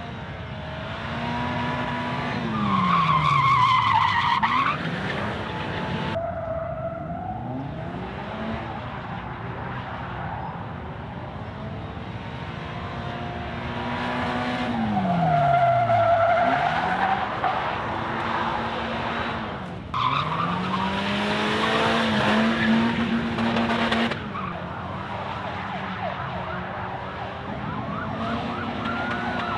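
Polaris Slingshot three-wheeler drifting, its four-cylinder engine revving up and down while the driven rear tyre squeals and skids. There are several passes, and the sound changes abruptly a few times.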